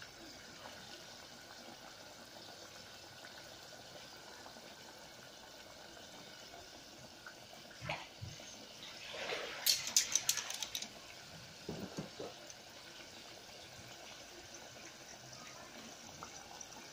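Sweet potato chunks deep-frying in cooking oil in a stainless steel pot: a steady sizzle of bubbling oil. About ten seconds in comes a short run of sharp crackles and clicks.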